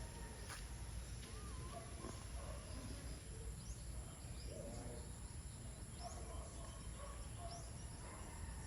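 Faint outdoor ambience: scattered short bird chirps over a steady high-pitched insect drone.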